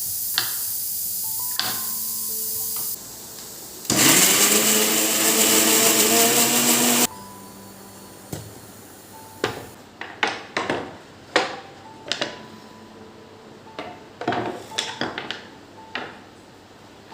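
A steady hiss, then a small electric motor whirs up, its pitch rising as it starts, runs for about three seconds and stops. A string of light clicks and knocks follows.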